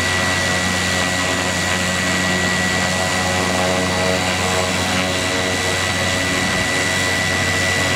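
Beech C90B King Air's Pratt & Whitney PT6A turboprop running steadily on the ground, a constant high turbine whine over a low propeller drone.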